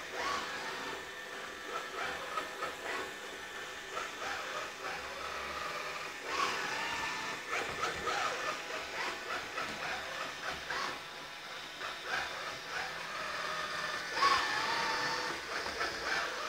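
Diunamai WD-G500 robot vacuum cleaner running: a steady hiss from its suction and brushes, with a wavering whine over it that grows louder about fourteen seconds in.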